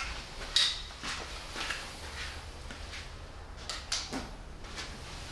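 Footsteps on a concrete floor, about two a second, with a few light knocks and clinks of a hand tool being handled; the sharpest knock comes about half a second in.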